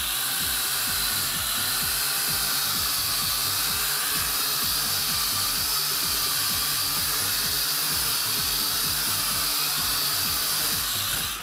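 JJRC H8D toy quadcopter's motors and propellers whirring steadily as it hovers, an even high-pitched buzz that stops suddenly near the end.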